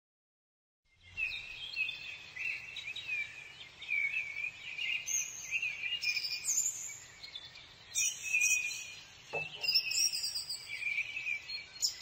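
Common kingfisher calling: quick series of shrill, high whistled notes, starting about a second in and repeating in bursts.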